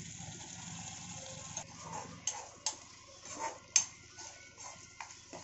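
Steel spoon stirring thick mutton keema in a kadai, scraping through it and knocking against the pan with several sharp clicks, the loudest nearly four seconds in.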